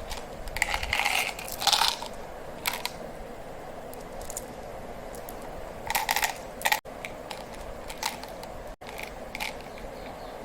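Candy and chocolate wrappers crinkling and tearing open in a few short bursts, with small clicks and taps between them.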